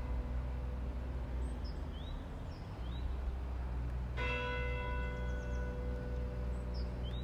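Church bell tolling slowly, one stroke about every four seconds: the ring of the previous stroke fades, then a new stroke sounds about four seconds in and hums on.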